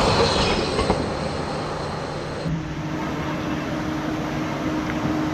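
Train rolling on the rails: a steady, noisy rumble of wheels on track, with a thin high squeal early on. About two and a half seconds in the sound changes abruptly and a steady hum carries on under the rumble.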